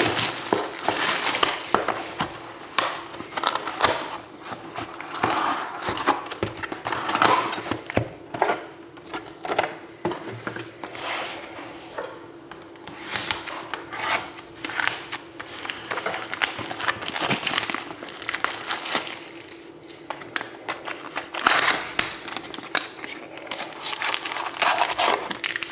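Plastic wrapping crinkling and tearing as a sealed box of trading cards and the packs inside it are opened, in irregular rustling bursts.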